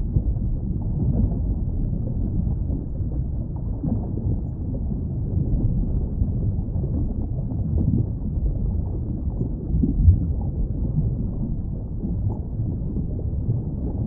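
Underwater ambience: a steady, deep, dull rumble of moving water with small irregular flickers, and a brief louder swell about ten seconds in.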